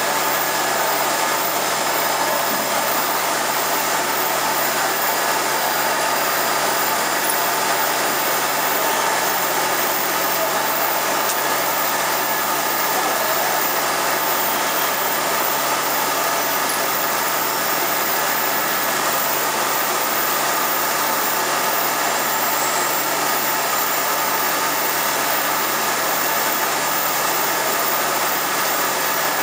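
A small-vial washing and drying machine running, a steady whir of motors and fans with a few faint steady tones and no change in pace.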